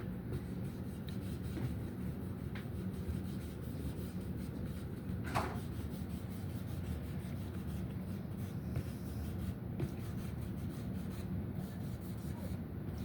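Paper towel rubbing lemon oil into a guitar's fretboard, with faint scattered ticks and one sharper click about five seconds in, over a steady low background hum.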